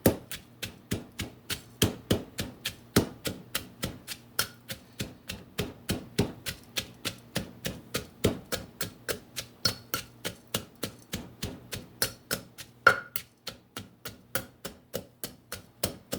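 Pestle pounding garlic, peppercorns, coriander seed and ginger in a mortar: a steady run of sharp knocks, about four strikes a second.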